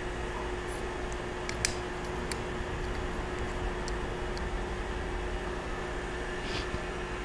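Steady background hum with a faint steady tone in it. A few faint clicks in the first half or so come from digital calipers being handled against a machined part.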